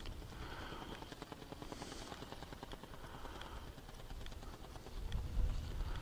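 Wind buffeting the microphone in uneven low rumbling gusts, growing stronger about five seconds in, with a few faint brief higher sounds in between.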